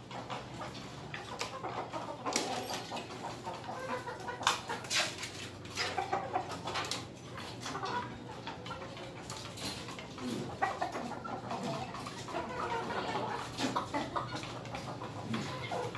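Caged chickens clucking on and off, with scattered sharp clicks and knocks, mostly in the first few seconds.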